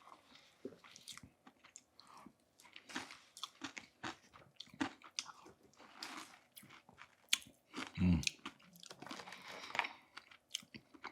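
Close-miked eating: a person biting and chewing crunchy food, with many short crunches and wet chewing sounds, and a low thump about eight seconds in.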